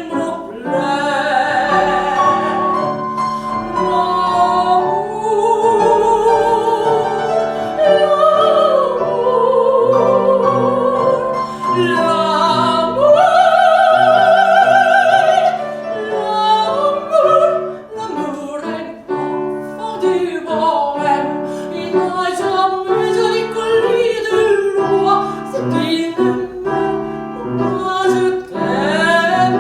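Classical soprano singing with wide vibrato over piano accompaniment, holding long notes in an operatic style.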